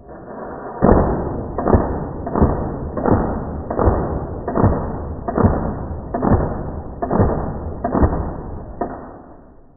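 A run of about eleven heavy booming hits, evenly spaced a little under a second apart, each dying away slowly.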